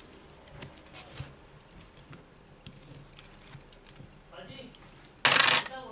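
Protective plastic liner being peeled off acrylic double-sided tape stuck around the frame of an iPad 2: faint small ticks and crackles from fingers working the film, then a loud short rasp a little after five seconds in.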